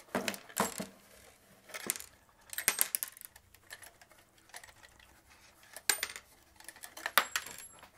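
A loose metal bracket and nuts clinking and rattling inside a plywood amplifier enclosure as it is turned over and shaken by hand, with a handful of irregular sharp clinks and knocks of the wooden box.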